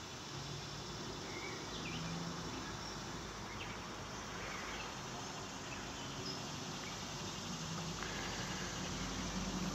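Steady outdoor drone of summer insects, an even dense buzz, with a few faint short chirps over it. A low rumble comes up near the end.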